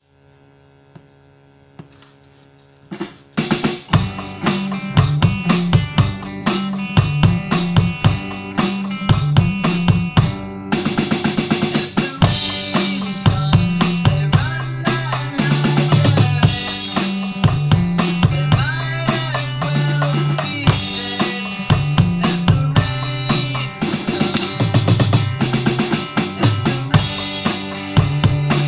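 Electronic drum kit played in a steady beat over a backing song with a bass line. The drums come in about three seconds in, after a quiet opening of held notes.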